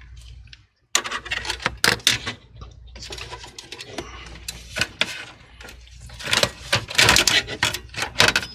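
Irregular clicks, taps and rattles of computer hardware being handled inside a PC tower, with motherboard screws being undone and parts moved about. The clatter is busiest about seven seconds in.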